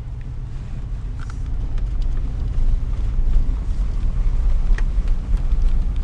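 A vehicle driving slowly on a gravel road: a steady low engine and tyre rumble, with a few faint ticks from the gravel.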